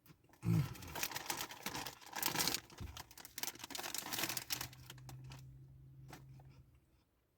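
Crinkling and rustling of a potato chip bag as a hand reaches in for another chip, densest in the first few seconds and then thinning to scattered crackles.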